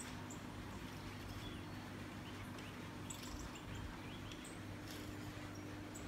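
Faint, scattered short high chirps of small birds played through a tablet's speaker, over a steady low hum.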